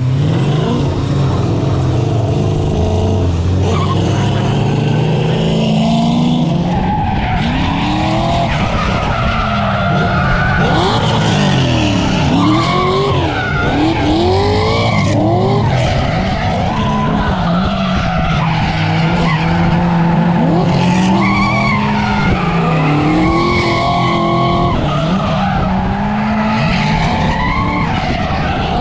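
Turbocharged Mazda Miata's engine revving up and down hard through a tandem drift, with tyres squealing and skidding on concrete.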